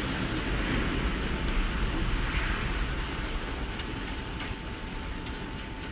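Typhoon-force wind blowing over and around a tall building, a steady rush with a deep rumble that swells about a second in and eases off after about three seconds; wind alone, almost no rain.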